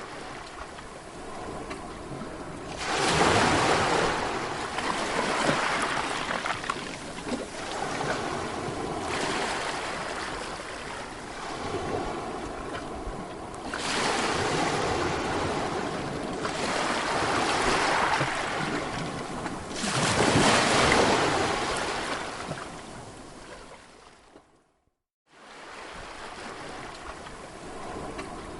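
Sea waves breaking and washing on a shore, a rushing hiss that swells and ebbs every few seconds. It fades out to silence briefly near the end, then the surf starts again.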